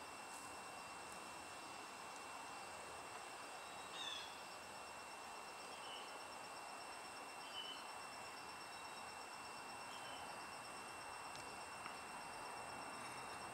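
Faint outdoor background: a steady, high, thin insect trill with short faint chirps every couple of seconds.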